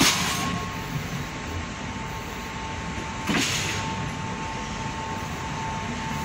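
Passenger train running along the track, heard from an open carriage door: a steady rumble and rush of air with a thin steady whine. Two louder rushes of noise come through, one at the start and one about three seconds in.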